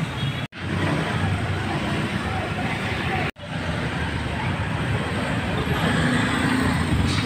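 Street traffic noise: a steady mix of passing motor vehicles, cut off abruptly twice.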